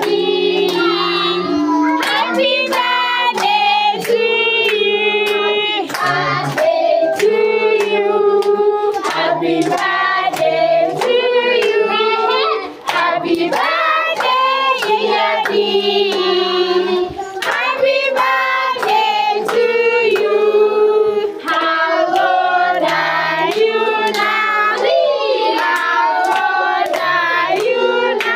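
A group of children singing a birthday song together, clapping their hands in a steady beat of about two claps a second.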